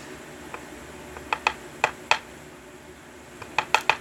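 Small metal lock parts clicking and tapping as a six-pin tumbler lock is taken apart: a group of four or five sharp clicks about a second in, and another quick run of clicks near the end.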